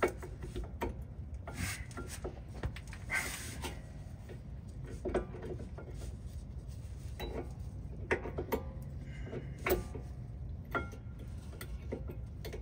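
A new brake pad being worked into the spring clips of a Ford Transit's rear caliper bracket: scattered metal clicks, taps and short scrapes as the pad is pushed against the clip springs and seated.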